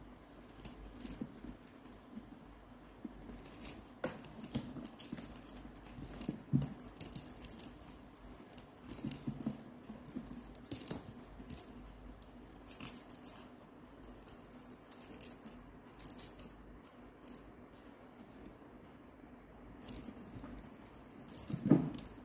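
A small bell jingling in short, repeated bursts as a cat bats, bites and pounces at a feather wand toy, with soft thumps of paws on a carpeted cat tree and a louder knock near the end.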